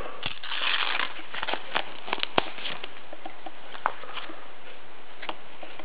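A sticker packet being torn open, crinkling for about a second. Then scattered light clicks and ticks as the stack of stickers is handled and leafed through.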